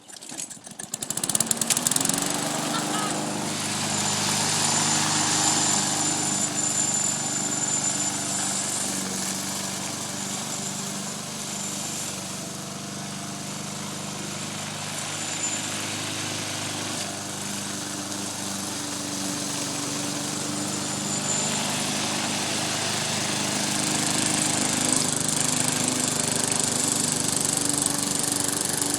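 Small gasoline walk-behind lawn mower engine pull-started by its recoil cord: it fires and catches within about two seconds, then runs steadily.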